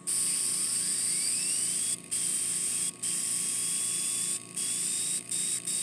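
Paasche AB turbo airbrush running on compressed air: a loud air hiss with a thin whine from its air-driven turbine disc. The whine rises in pitch over the first second or so as the disc spins up, then holds steady. The air cuts out briefly three times. The spinning disc shows the turbine working again after its bearing tension was reset.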